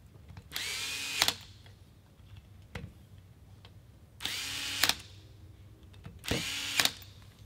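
Cordless electric screwdriver driving screws into a plastic cheek rest at a reduced torque setting. It runs in three short whirring bursts, about a second in, near four seconds and past six seconds, and each burst ends in a sharp click.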